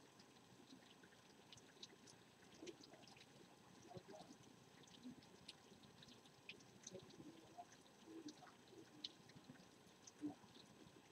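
Faint rain, heard as scattered irregular drips and small ticks over a low hiss.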